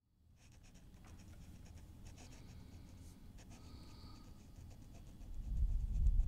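Pen scratching on paper in short strokes, fading in from silence at the start. A low rumble swells near the end and is the loudest part.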